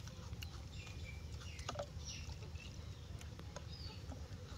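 Faint outdoor yard ambience: a steady low hum with scattered small clicks and a few faint bird chirps.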